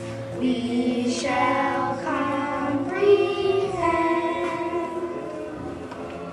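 Children singing a melody with musical accompaniment, the notes held and sliding from one to the next.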